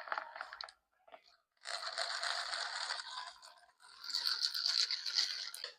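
Close-miked crunching and rustling of food being handled and eaten: a short burst, then two longer stretches of about a second and a half each.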